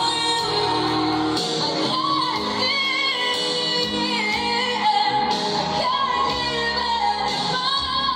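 Recorded music with a woman singing, played through a Samsung mini hi-fi stereo and its speakers and picked up in the room.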